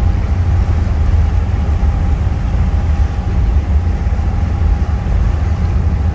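Car ferry under way: a loud, steady low rumble with a faint steady hum above it.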